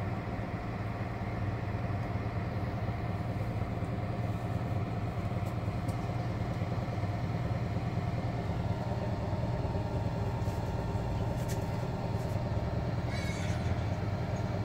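Samsung Eco Bubble front-loading washer-dryer running: its digital inverter motor turns the drum with a steady hum of several low tones, and a fainter higher tone joins about halfway.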